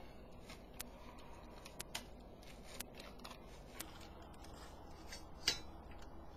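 Scissors snipping: a few separate sharp snips spread over several seconds, the loudest about five and a half seconds in.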